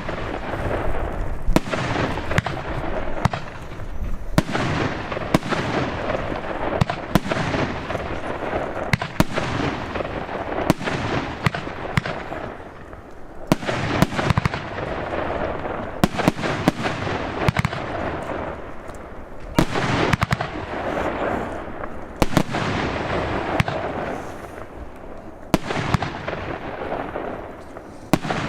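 Large 50 mm firework battery (cake) firing shot after shot: sharp bangs about every second, with a continuous crackling hiss between them.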